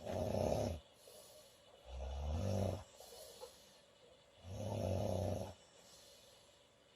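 A woman snoring loudly: three snores, each under a second long, coming about every two to three seconds, with quiet stretches between.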